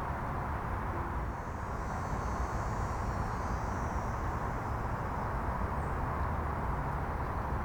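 Steady outdoor background of low rumble and hiss, like distant engine noise, with a faint high buzzing from about one to four seconds in.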